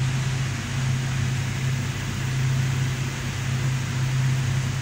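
Steady low hum with an even airy rush from a running fan motor.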